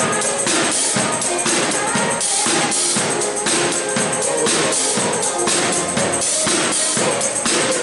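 Live pop band playing an upbeat song at a sound check, with a steady driving beat and bright cymbal or tambourine hiss.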